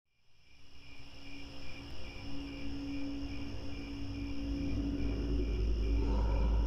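Cricket-like chirping fading in from silence, a steady pulsing about three times a second over higher steady tones, with a low rumble swelling up beneath it in the second half.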